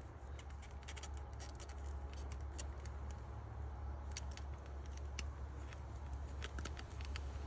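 Small scattered clicks and ticks of a speaker wire's connector being worked onto the terminal of a Kicker 4-inch speaker, fingers handling its plastic frame, over a steady low rumble.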